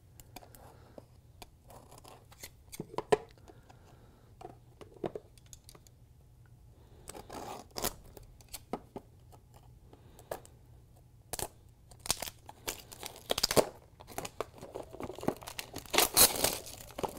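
Cellophane wrap being cut with scissors and peeled off a small cardboard box: scattered crinkling, snips and tearing, sparse at first and loudest near the end.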